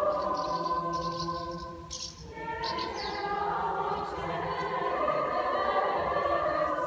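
A children's choir singing held chords, with short hissing consonants over the sustained voices; the singing dips briefly about two seconds in, then swells again.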